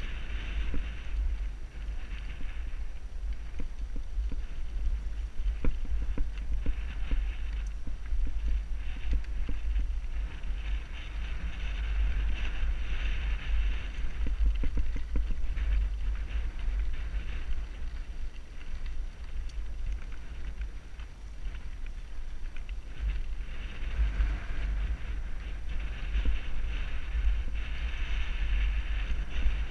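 Wind buffeting a helmet-mounted microphone as a steady low rumble, over mountain-bike tyres rolling on a dirt and gravel trail, with short rattles and knocks as the bike goes over bumps.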